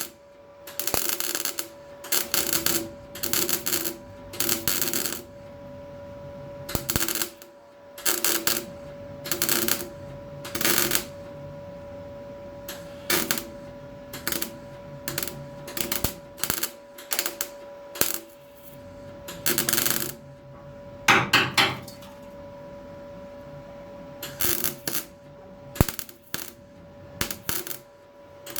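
An electric welder laying a long series of short welding bursts on thin car-body sheet steel, each under a second, with brief pauses between: stitch-welding a floor panel in on metal the restorer calls a bit weak. A steady faint hum runs underneath.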